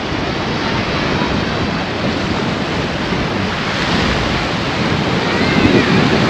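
Small sea waves washing onto a sandy beach, a steady rush of surf, with wind buffeting the microphone.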